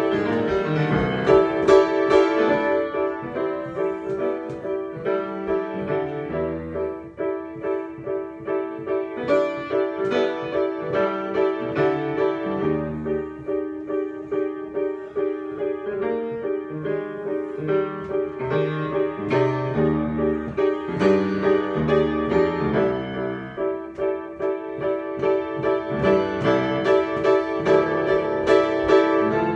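Solo piano improvisation: a repeated figure of struck notes in the middle register over a slowly changing bass line.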